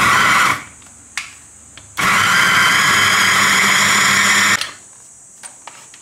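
Electric mini food chopper with a glass bowl chopping red chillies in two pulses: a brief one at the start, then a steady run of about two and a half seconds from about two seconds in. The short pulses give the coarse chop the cook wants.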